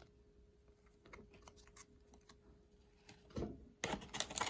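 Trading cards and packaging being handled: a few faint taps at first, then near the end a dense run of crinkling and clicking.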